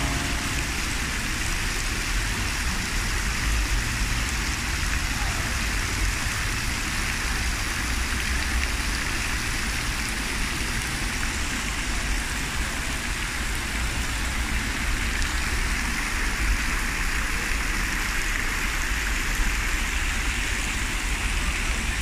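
Fountain jets splashing and pattering into a water basin, a steady hiss of falling water with a low rumble underneath.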